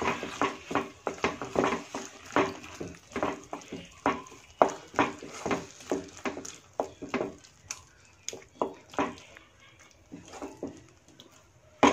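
Wooden spatula stirring and scraping a wet potato-and-pea vegetable mixture in a non-stick pan, a quick stroke two or three times a second, growing sparser near the end.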